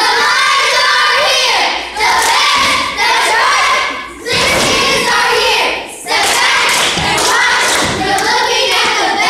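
A group of girls chanting a cheer in unison, in short rhythmic phrases with brief breaks between them, along with thumps from their stomps and jumps.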